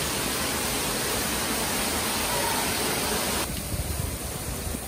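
Water pouring from a sheet waterfall into a swimming pool: a steady rushing splash. About three and a half seconds in it cuts to a quieter, lower rush of gas flames burning on a fire-on-water feature.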